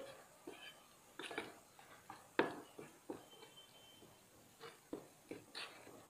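A spoon stirring a thick paste of gram flour and melted ghee in a bowl, with faint, irregular scrapes and soft knocks against the bowl. The besan is being mixed partway through microwave roasting.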